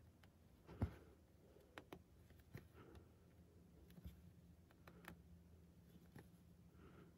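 Cross-stitch needle and embroidery floss worked through 18-count fiddler's Aida cloth: quiet, scattered clicks and soft rasps as the needle pierces the fabric and the thread is drawn through. The sharpest click comes about a second in.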